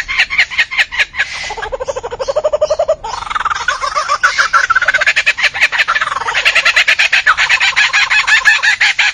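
Birds calling in dense runs of rapid, repeated notes, with a lower run of notes rising in pitch near the start.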